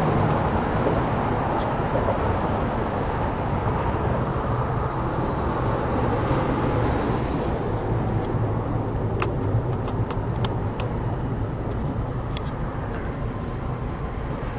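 BNSF GE Dash 9-44CW diesel-electric locomotives passing at low speed, their engines running with a steady low drone that slowly fades. A brief hiss comes about six seconds in, and a few sharp clicks come in the second half.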